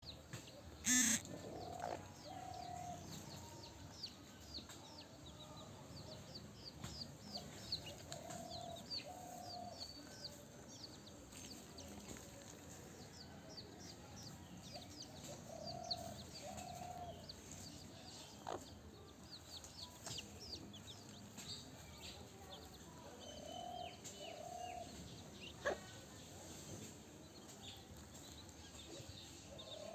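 Chickens clucking, a low two-note call coming back every several seconds, over a steady scatter of short, high chirps. A sharp knock about a second in is the loudest sound, with a couple of fainter knocks later.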